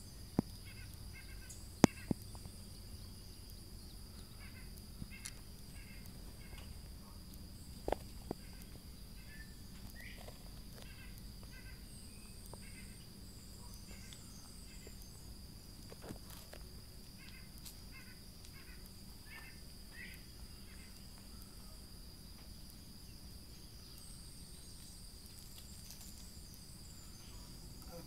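Rural summer ambience: a steady high-pitched insect drone with scattered short bird chirps, broken by a few sharp clicks and knocks, the loudest about two seconds in.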